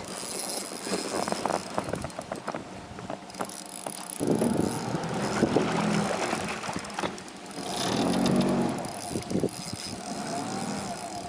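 Boat motor running, growing louder about four seconds in and again near the end as it comes closer, over wind and water noise.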